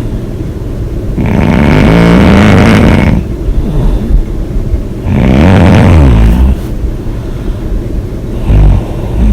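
A person snoring loudly with the mouth open: two long snores about four seconds apart and a short one near the end, with quieter breathing noise between.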